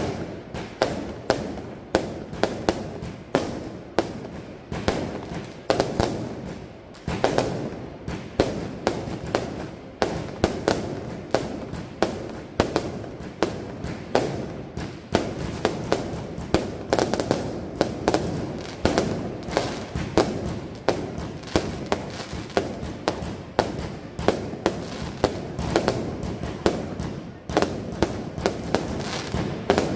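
Aerial fireworks going off in a continuous barrage: sharp bangs, a couple or more each second, with crackling between them.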